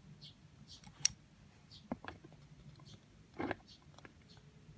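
A few light, scattered clicks and taps from a small Hot Wheels die-cast toy car being handled, with the loudest click about three and a half seconds in.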